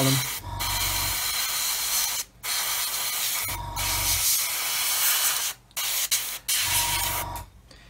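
Airbrush spraying paint, a steady hiss in long bursts that stop briefly a couple of times and end shortly before the end.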